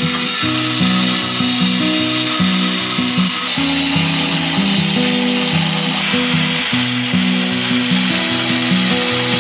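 Angle grinder with a cut-off disc cutting into a steel bar: a steady high whine and grinding hiss. Background music plays along with it.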